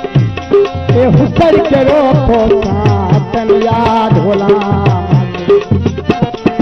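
Saraiki folk music (mahiya): a hand drum beats steadily with bending bass strokes under a wavering melody line.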